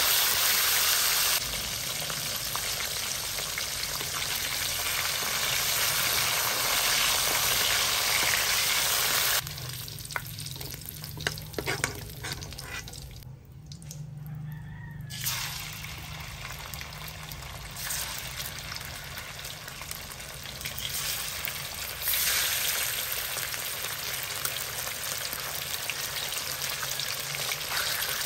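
Meat frying in hot oil in a wok: a steady sizzle, with a metal spatula scraping and turning the slices. About ten seconds in it drops to a quieter bubbling of the oil in the near-empty pan, with a few clicks from the spatula. About twenty-two seconds in the sizzle comes back loud as red cured pork (tocino) fries.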